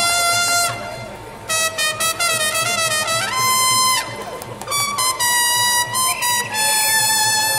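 Brass band playing a slow ballad: a melody in held notes, phrased with short breaks about a second in and again about four seconds in.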